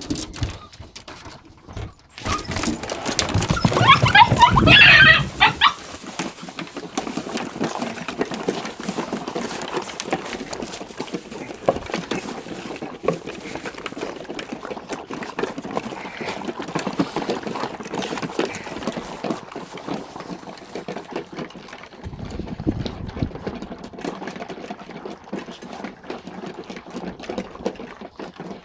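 Entlebucher puppies yelping and squealing for a few seconds near the start, then a long stretch of dense, irregular clicking and pattering as a litter of them eats together from a wooden multi-bowl feeder.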